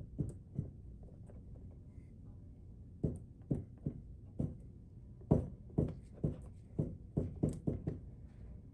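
Palette knife dabbing and pressing thick oil paint onto a stretched canvas: a string of short soft taps, a few at first, then about ten coming faster in the second half.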